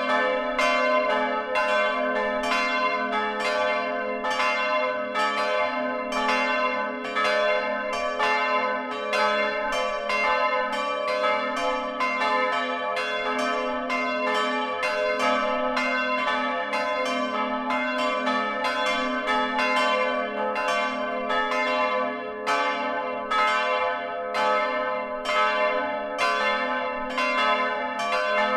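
Several church bells swinging and ringing together, heard up close in the belfry. The clapper strikes come about one and a half times a second over a sustained hum of overlapping bell tones.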